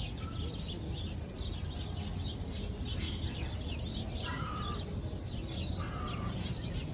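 Domestic turkeys calling: a string of short high chirps throughout, with two louder harsh calls about four and six seconds in, over a low steady rumble.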